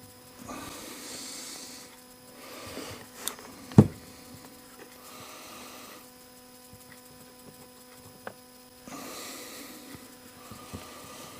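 Small parts of a DeWalt impact driver's quick-change bit holder being worked into place by hand: a few sharp clicks, the loudest a little under four seconds in, among soft breath-like hisses and a steady electrical hum.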